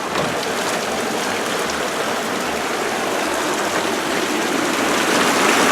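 Steady rain falling, with a continuous rush of running water.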